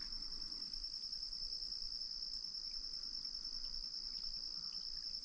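Insects trilling: a steady, unbroken high-pitched drone that holds at one pitch over a faint background hiss.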